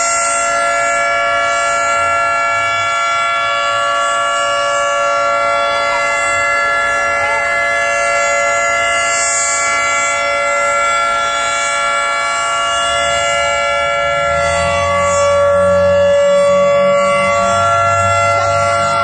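American Signal 3T22 three-tone tornado siren sounding its steady alert during a monthly test: several level tones held together as one dissonant chord. A low rumble joins underneath about two-thirds of the way through.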